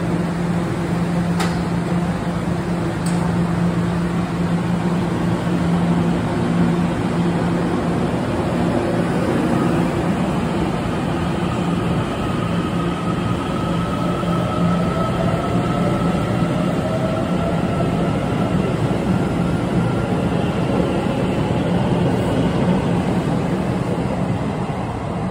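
TEMU2000 Puyuma Express tilting electric train pulling out of the station: a steady electrical hum at first, then from about ten seconds in a slowly rising motor whine as it gathers speed past the platform. Two short clicks sound in the first few seconds.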